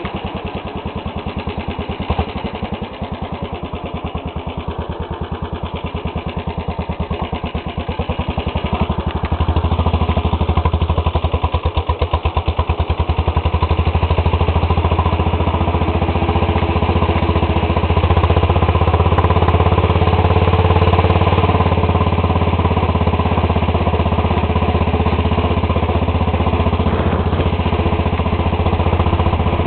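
Modified lawn tractor's small engine running under way. Its firing is a fast, even beat. It gets louder about nine to ten seconds in as the tractor picks up speed, then holds steady.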